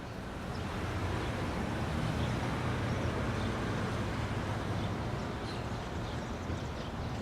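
A steady low rumbling ambience fades in from silence and then holds, with faint short high chirps scattered through it.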